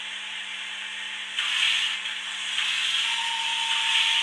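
Model steam locomotive's sound decoder playing a steady steam hiss through its small speaker, which swells louder about a second and a half in and again near three seconds; a faint steady tone joins near the end.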